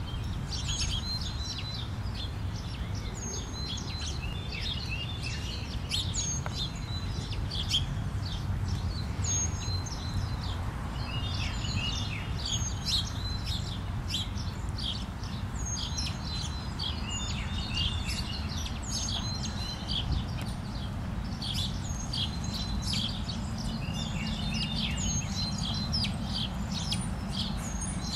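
Small birds chirping busily, many short high calls overlapping, over a steady low rumble.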